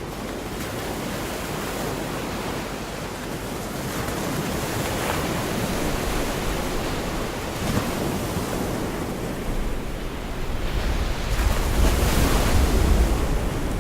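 Gulf of Mexico surf washing onto the beach in a continuous hiss that swells and eases several times, loudest about three quarters of the way through. Wind buffets the microphone with a low rumble.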